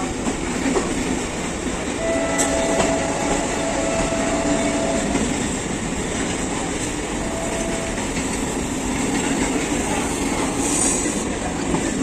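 Train running on rails: a steady loud rumble and rattle of wheels on track, with a thin steady tone riding over it from about two to five seconds in and again briefly near eight seconds.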